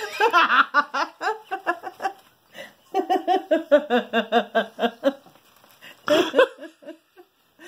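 People laughing hard in rapid, pulsing bouts: two long runs of laughter, then a shorter burst near the end.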